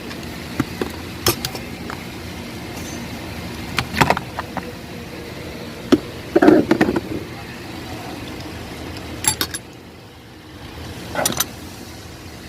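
Scattered sharp clicks and knocks of steering column parts and tools being handled during disassembly, a cluster of them about halfway through, over a steady background hum.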